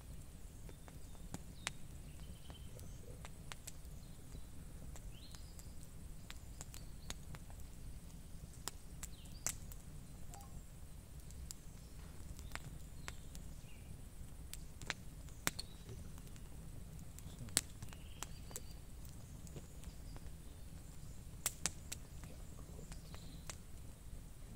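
Wood fire crackling: scattered sharp pops at irregular intervals over a steady low rumble.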